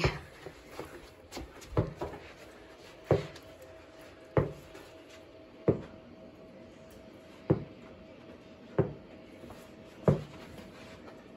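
Basketball dribbled on a carpeted floor: a slow, steady series of single dull bounces, about one every 1.3 seconds.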